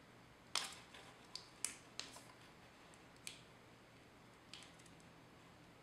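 Faint, sharp plastic clicks, about six at irregular intervals, from handling a small clip-on camera flash and working at its plastic cover.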